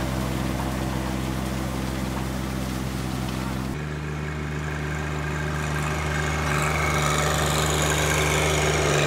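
Compact tractor diesel engine running steadily. A little under four seconds in, the hum switches abruptly to a different, steady engine note, as from a second tractor.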